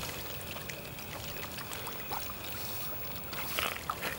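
Steady flowing and trickling of floodwater, an even wash of water noise with a few faint small ticks.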